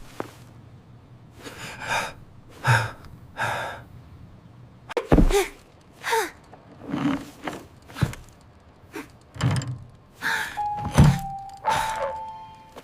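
A string of dull thuds and knocks a second or two apart, with a steady ringing tone over the last two seconds or so.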